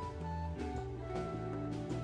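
Background music: gentle instrumental with plucked, guitar-like notes over a held bass line.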